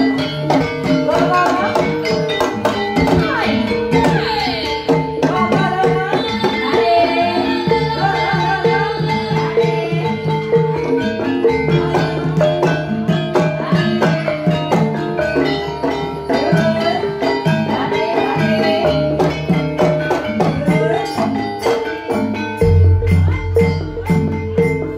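Javanese gamelan (karawitan) music for ebeg: metallophones and kendang hand drums playing a steady, busy rhythm at a loud level. Deep low notes come in near the end.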